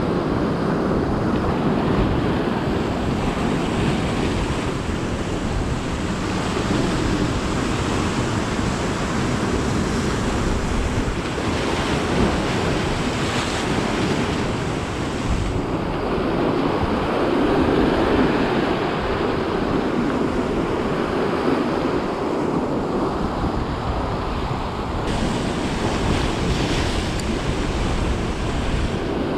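Sea surf and wind buffeting the microphone: a continuous loud rush that swells slightly a little past halfway.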